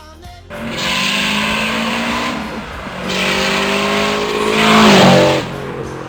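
Turbocharged Subaru STi EJ257 flat-four under hard acceleration in two pulls, revs climbing in each, with a break about two and a half seconds in. A loud hiss rides over the engine note during each pull, from the 44 mm external wastegate dumping straight to atmosphere. The second pull is the loudest and cuts off sharply about five and a half seconds in.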